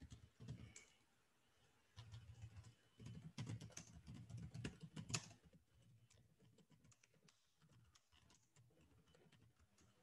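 Faint typing on a computer keyboard: quick runs of keystrokes in the first half, then lighter, scattered taps.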